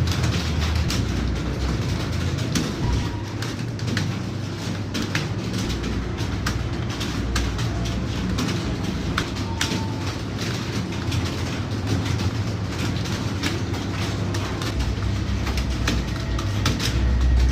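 Many computer keyboards being typed on at once during a typing test: a dense, irregular clatter of key clicks over a low steady rumble.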